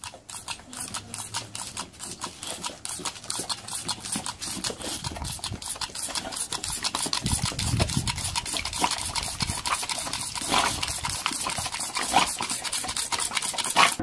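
A boxer dog snapping at squirts from a toy water pistol: a rapid run of clicks and spatter, about four a second, growing louder toward the end with a few sharper hits.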